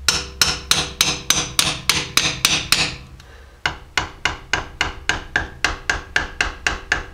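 Hammer striking a chisel again and again to knock the seal out of an NP231 transfer case's tail housing, about three blows a second. The blows stop briefly about three seconds in, then start again.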